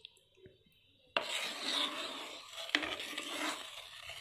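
A spoon stirring thick soup in a pan on the stove, scraping and rubbing against the pan with an occasional click. It starts suddenly about a second in and keeps going.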